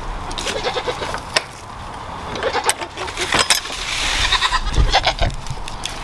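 Farm animals calling: a quick run of low clucks early on, then several short pitched cries through the middle and latter part, with a few sharp clicks in between.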